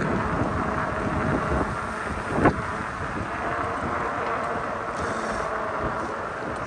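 Wind buffeting the microphone while riding an e-bike, with a single sharp knock about two and a half seconds in.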